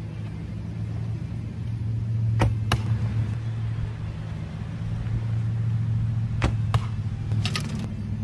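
A recurve bow shot twice. Each time the string snaps sharply on release, and the arrow strikes the target about a third of a second later. A quick cluster of clicks comes near the end, all over a steady low hum.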